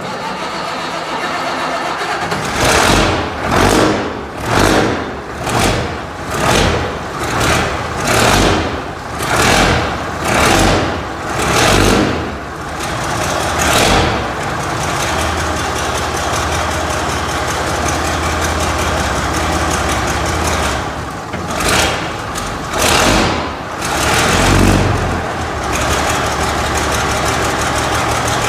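A 1962 Mack B-61 truck's diesel engine just after a cold start, blipped in a quick series of about a dozen revs roughly one a second. It then settles to a steady run, with a few more revs about three-quarters of the way through before running steadily again.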